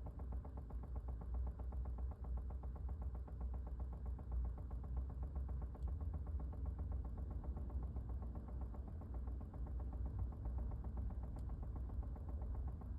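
2020 Chevy Bolt giving off a rapid, even clicking, many clicks a second without a break, over a steady low rumble.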